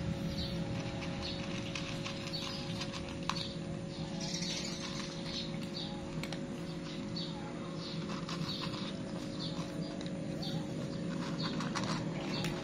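Two cats, an adult and a kitten, crunching dry kibble from plastic bowls: a continuous run of small crunches and clicks, over a faint steady hum.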